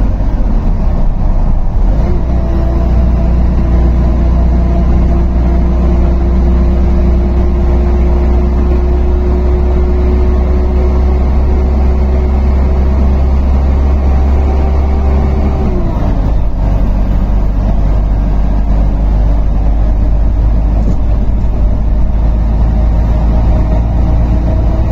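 Bus engine running at highway cruising speed, heard from inside the cab, with a steady low drone and road noise. About two-thirds of the way through, the engine note glides down and the deep rumble eases, then it runs on steadily.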